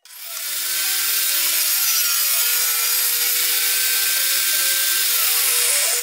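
Table saw running and cutting through a cypress board, a steady loud blade whine with sawing noise. It builds over the first half second, holds steady, and cuts off suddenly at the end.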